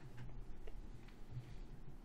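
Quiet room tone: a faint steady low hum with a few soft ticks.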